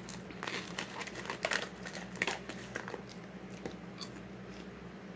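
Clear plastic snack bag crinkling in the hands while pieces of flavoured popcorn are taken out and crunched in the mouth. The sharp crackles come thickest in the first three seconds, then thin out.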